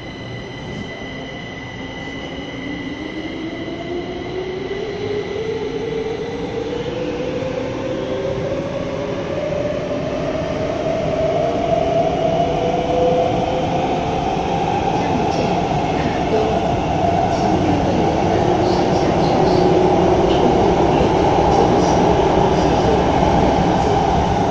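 Three-car Kaohsiung MRT metro train heard from inside a car as it accelerates: a motor whine rises slowly in pitch while the running noise grows steadily louder.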